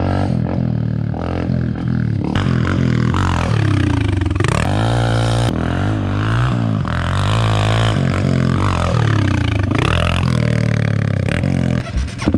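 Dirt bike engines running, with one revving up and down; its pitch dips and climbs twice, about four and nine seconds in, over a steady low engine note.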